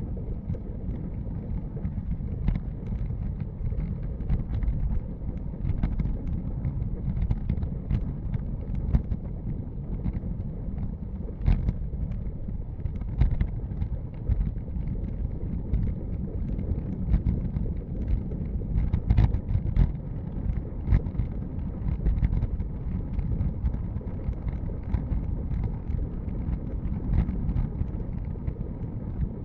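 Wind buffeting the microphone of a handlebar-mounted camera on a moving road bike: a steady low rumble with scattered small clicks and knocks from the road.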